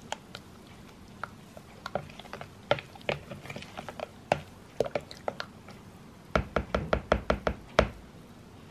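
Kitchen containers and utensils being handled, giving scattered light knocks and clicks, then a quick run of about eight knocks in a second and a half near the end.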